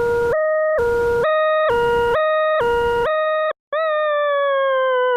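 Electronic two-tone siren-like sound alternating between a high and a low pitch about twice a second, the pair stepping up in pitch after about a second. It cuts off briefly past the middle and comes back as one long tone slowly sliding down in pitch.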